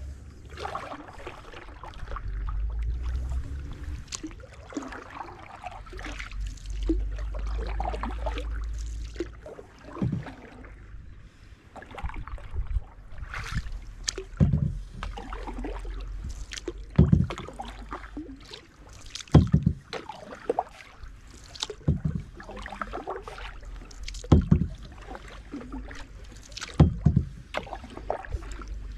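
Canoe paddle strokes in the water: a sharp splash every two and a half seconds or so from about ten seconds in, over a low rumble that fills the first third.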